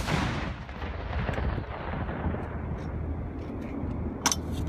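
Rolling echo of an M101 105 mm howitzer shot dying away over about two seconds, then a single sharp clack near the end.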